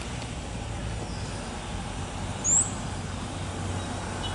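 Steady low rumble of outdoor background noise, with one short, high, rising chirp about halfway through.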